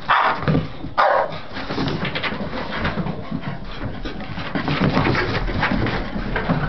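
Two Staffordshire bull terriers play-fighting: two loud, short barks in the first second, then continuous rough grunting and scuffling as they chase each other.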